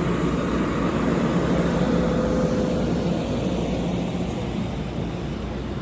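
Steady low rumble and hum inside an Amtrak Pacific Surfliner passenger car as the train pulls away, with a faint held tone about two seconds in.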